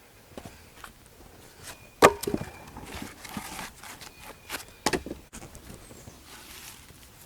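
Pieces of sawn wood knocking together as they are handled, with a loud knock about two seconds in, another near five seconds, and a few lighter clacks.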